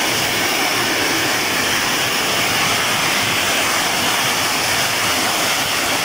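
Small waterfall pouring down over boulders into a rocky stream: a steady, unbroken rush of water.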